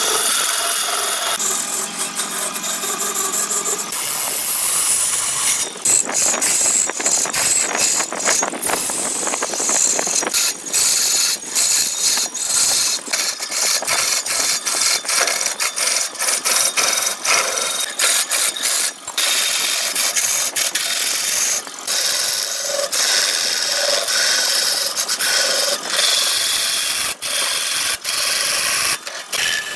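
Turning gouge cutting into a large blank spinning on a big wood lathe: a continuous rasping hiss of shavings peeling off the wood, broken by frequent brief gaps as the tool's bite changes, over the lathe's running motor.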